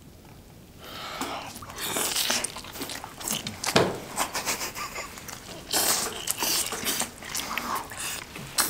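Close-up mouth sounds of two people biting into and chewing a glazed grilled eel, irregular and wet, starting about a second in.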